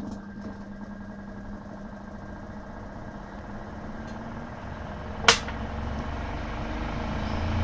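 Small top-loading clothes spin dryer running, its motor humming steadily as the drum spins, with one sharp click about five seconds in.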